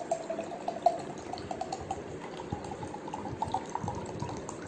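Water pouring from a plastic bottle into a glass jar, the pitch of the filling jar rising steadily as it fills.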